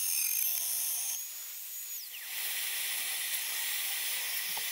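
Trim-router spindle on a homemade CNC machine, running a 2-flute 6 mm bit through 6 mm plywood: a high-pitched whine with hiss. About two seconds in, one tone slides quickly down in pitch, and the hiss carries on steadily.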